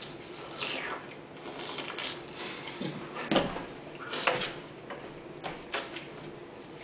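Watermelon being eaten fast: irregular wet slurps and chewing of juicy slices, with a few sharp clicks and knocks from the plates, the loudest about three and a half seconds in.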